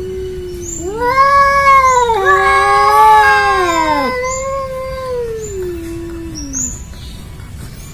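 Two cats yowling at each other in a face-off: long, wavering, drawn-out caterwauls, one low and held, a second louder and higher one joining about a second in and overlapping it, then a long falling moan that fades out. It is the hostile territorial yowling of two cats that do not get along.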